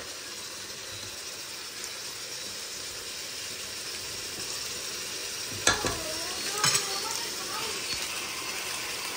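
Chicken frying in yogurt in a pot on the stove, sizzling steadily while it is stirred with a spatula. A little past halfway there are two sharp knocks about a second apart.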